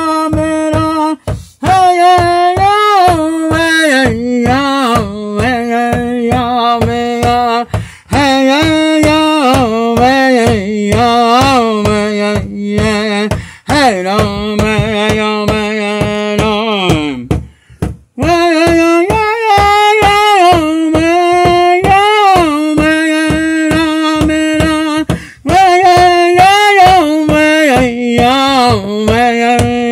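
Music: a sung melody in phrases over a steady beat.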